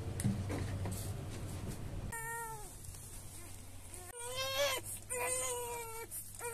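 A young child crying in three drawn-out wails, each about half a second to a second long and falling off at the end, starting about two seconds in. Before the crying there is low, indistinct rustling and handling noise.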